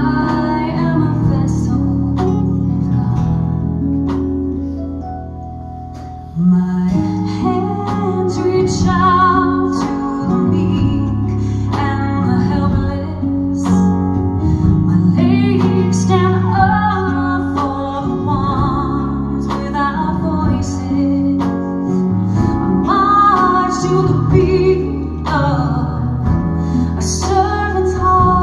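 A woman singing a song with vibrato, accompanied by electric guitar and held chords; the music gets suddenly louder about six seconds in.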